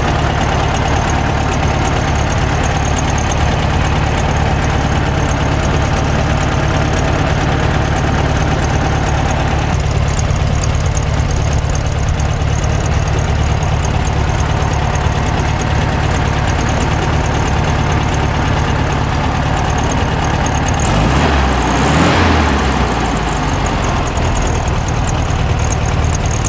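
Air-cooled flat-four engine of a 1967 Volkswagen Beetle idling steadily, with a brief louder swell about three-quarters of the way through.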